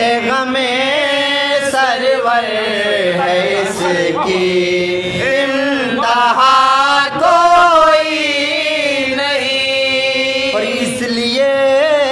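Sozkhwani: unaccompanied voices chanting a Shia mourning elegy (soz) in long, slowly bending held notes.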